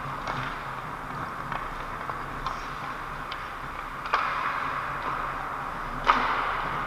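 Ice hockey play in an indoor rink: skate blades scraping and carving on the ice, with sharp clacks of sticks and puck about four seconds in and again near the end.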